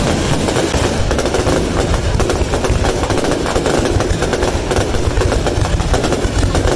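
Aerial fireworks display going off in a dense, unbroken barrage of rapid, closely spaced bangs.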